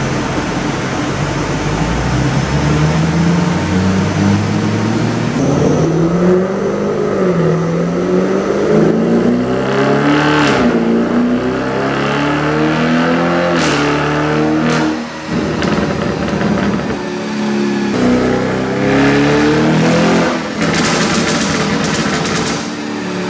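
Stage 2-tuned Audi RS6's twin-turbo V8 revving through its aftermarket exhaust, climbing and falling in several long sweeps. As the revs drop it fires off loud pops and bangs, with a rapid burst of crackles near the end.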